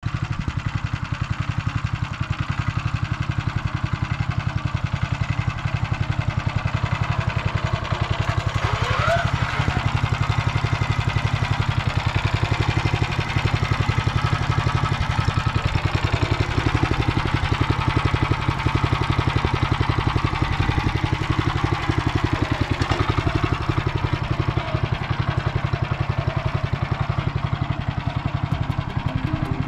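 Engine of a Motor Sich walk-behind tractor running steadily as it works a plot with a reversible plough hitched behind.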